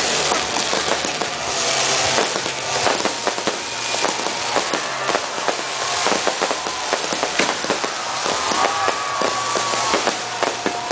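Fireworks display: a dense, unbroken run of rapid crackling pops and bangs.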